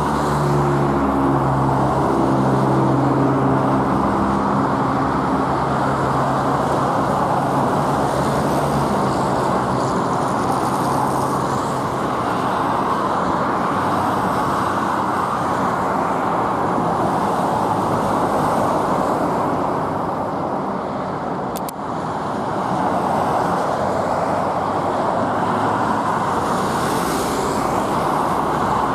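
A car driving, with steady road and engine noise. An engine tone is heard over it in the first few seconds and then fades out. There is a brief click a little past two-thirds of the way through.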